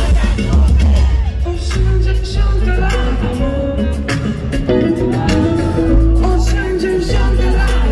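Live concert music played loud over an arena sound system: heavy bass with a voice singing.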